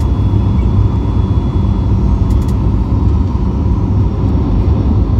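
Steady low rumble of airflow and the CFM LEAP-1B engines heard inside the cabin of a Boeing 737 MAX 8 flaring over the runway just before touchdown, with a faint steady whine above it.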